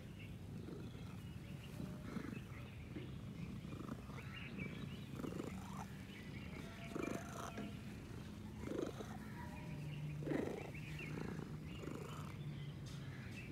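Domestic cat purring, close to the microphone.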